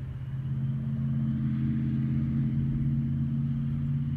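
Steady low engine hum of unchanging pitch, growing louder over the first second and then holding.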